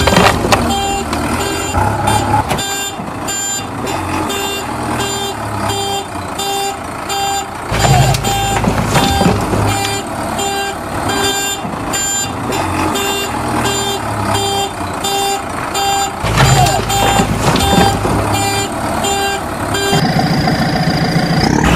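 Electronic reversing-alarm beeping, a regular beep about twice a second, over a low vehicle engine-like rumble, with a steady high tone entering near the end.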